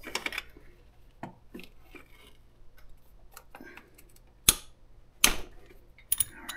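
Scattered clicks, taps and rustling of hands handling parts in a scooter's engine bay. The sharpest clicks come about four and a half and five and a half seconds in, with a quick double click near the end.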